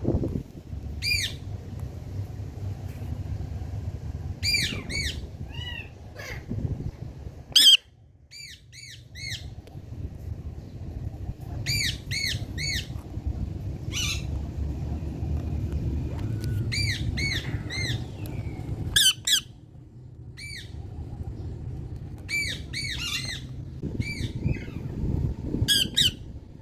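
Indian ringneck parakeet squawking: short, sharp, high calls in quick runs of two to four, repeated all through, over a low rumbling background noise.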